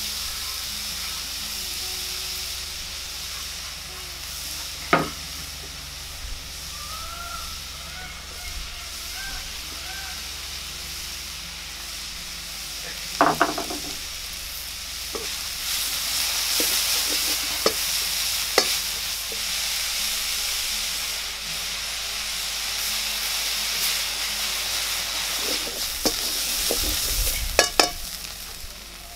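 Grated carrot, onion, chilli and leeks sizzling in oil in a metal wok over a wood fire, a steady hiss that grows louder about halfway through. A wooden spatula knocks and scrapes against the pan, once about five seconds in, in a cluster about halfway through, and several times near the end.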